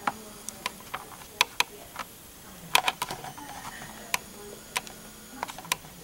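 Irregular light clicks and taps, about a dozen, scattered unevenly, over a faint steady hum.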